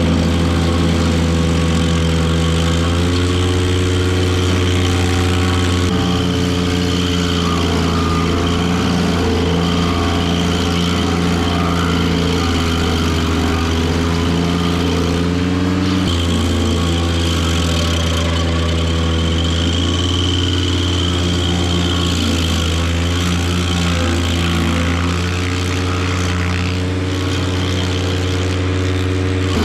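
Ventrac 4500Z tractor's engine running at high speed, driving a KC220 stump grinder's carbide-toothed rotor. The engine note sags briefly several times as the rotor bites into the stump, then recovers, over a steady grinding noise.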